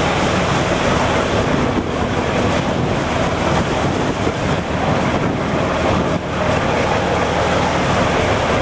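A boat's engine runs steadily under heavy wind buffeting on the microphone and the wash of rough sea.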